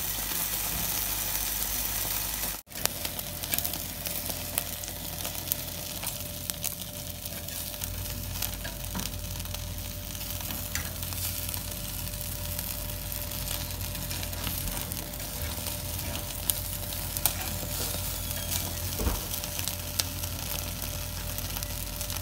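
Masala-coated chicken drumsticks sizzling and crackling on a wire grill rack over an open gas-burner flame, with the steady hiss of the burner under scattered small crackles. The sound cuts out for a moment about three seconds in.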